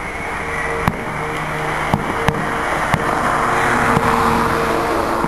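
Fireworks shells bursting: four sharp cracks in the first three seconds, heard over a steady background rush and hum.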